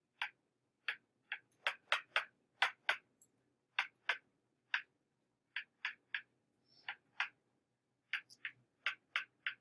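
Stylus tip tapping and clicking on a tablet screen during handwriting: an irregular run of short, sharp clicks, two or three a second, with a few brief pauses.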